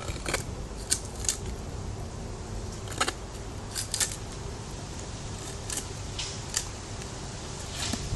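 Spyderco Paramilitary 2 folding knife with an S30V steel blade cutting in short separate strokes: about eight crisp, sharp cuts at uneven intervals.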